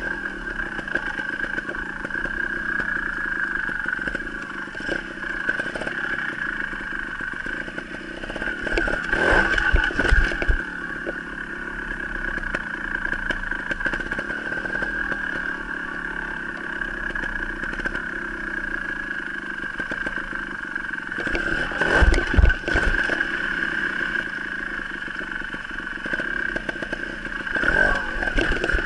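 Trials motorcycle engine running at low speed as the bike rides the course, with louder throttle bursts and thumps about nine seconds in, around twenty-two seconds in, and near the end.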